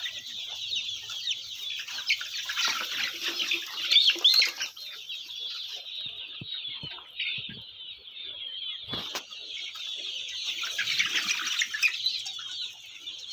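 A large flock of young Golden Misri chickens peeping and chirping all at once, a dense high chatter of overlapping calls with some clucks. A single sharp knock sounds about nine seconds in.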